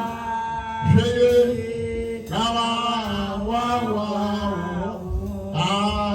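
A man's voice singing a slow chant in long, drawn-out phrases that rise and fall, over a steady low held tone.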